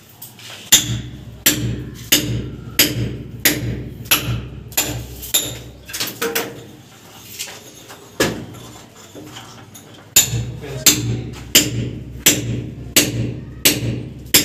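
Repeated hammer blows at a steady pace, about three every two seconds. They stop for a few seconds in the middle, with one lone blow, then resume.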